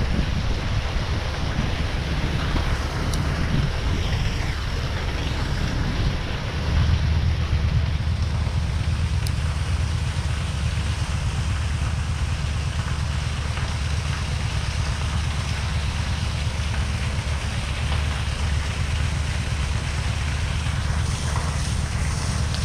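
Wind buffeting the microphone: a steady, uneven low rumble with hiss over it, gusting stronger about six seconds in.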